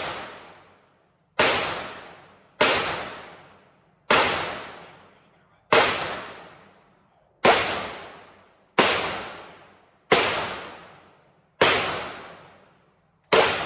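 Gunshots fired one at a time at a steady pace, about nine in a row roughly every second and a half. Each shot rings out with a long echoing tail.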